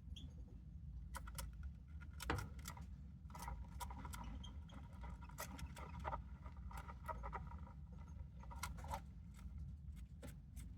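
Small sharp clicks and light scraping from a budgerigar moving about in its nest box, irregular and faint throughout.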